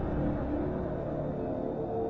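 Background soundtrack music: held tones over a deep bass drone, which thins out near the end.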